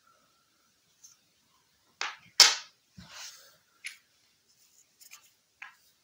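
Aluminium-bronze Danish 20-kroner coin set down on a laminate floor and other coins handled: a string of sharp clicks and taps, the loudest two coming close together about two and a half seconds in, followed by lighter clicks.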